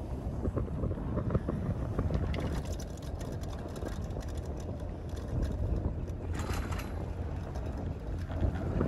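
Wind rushing over the microphone on a moving chairlift chair, over a steady low rumble with faint scattered clicks. A short, brighter gust of hiss comes about six and a half seconds in.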